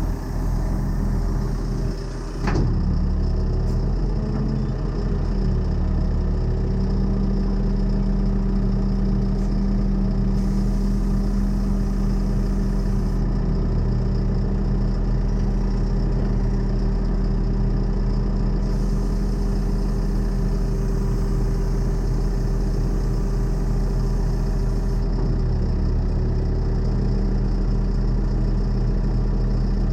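Tow truck's engine running steadily while its hydraulic deck is levelled, with a single sharp click about two and a half seconds in.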